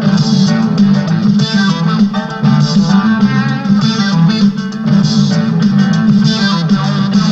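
Background music led by guitar, with a steady rhythm.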